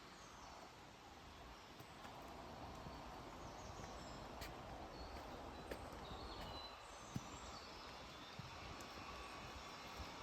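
Faint outdoor ambience: a steady background hiss with a low rumble, and birds chirping in short phrases several times through it, with a few light clicks.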